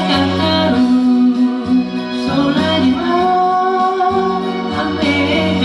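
Sung cover of a Japanese pop song: a solo voice over a guitar-led backing track.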